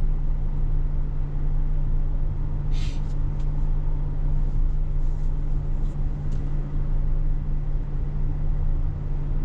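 A stationary car engine idling steadily, heard from inside the cabin. There is a brief hiss about three seconds in and a few faint ticks later on.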